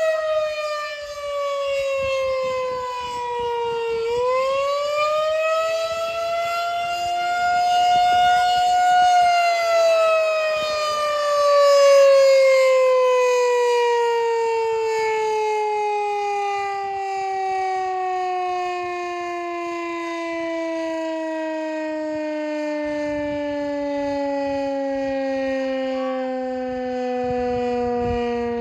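Outdoor tornado warning siren sounding on its monthly test. Its wail dips, swings back up about four seconds in, then from about nine seconds in winds down in one long, slowly falling tone.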